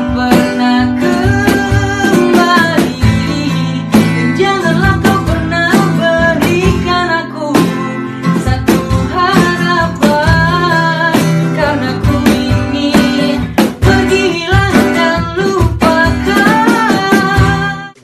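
A young man singing an Indonesian song over a strummed acoustic guitar.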